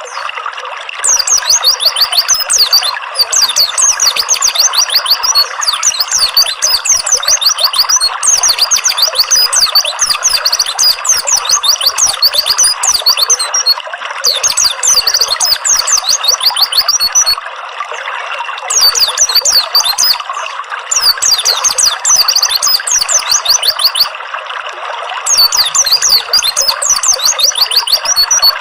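Songbird chirping in rapid, high-pitched runs, coming in bouts of several seconds with short pauses between them, over a steady trickle of running water.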